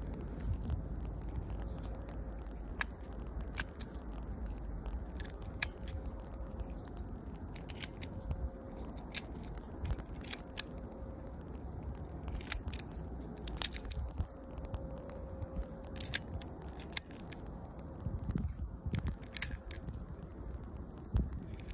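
BBs being thumbed one at a time into the small magazine of an Academy Colt 25S spring airsoft pistol, each one going in with a sharp little click, the clicks coming at irregular intervals.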